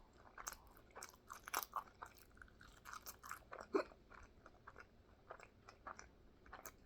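A person chewing food close to the microphone: a run of small wet clicks and crunches, busiest in the first few seconds, with one louder sharp sound about four seconds in.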